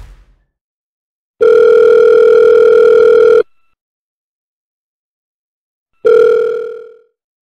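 Phone ringback tone as an outgoing call rings: a steady ring of about two seconds, a pause of about two and a half seconds, then a second ring that fades out after about a second.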